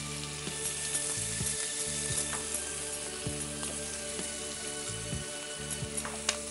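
Chopped onion sizzling steadily as it fries in hot oil in a pan. A wooden spatula stirring it gives a few light knocks.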